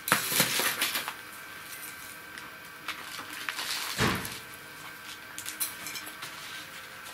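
Gritty potting mix of brick crumbs, humus and perlite poured from a metal scoop into a plastic pot, rustling and pattering in bursts with the scoop clinking, and a heavier thump about four seconds in.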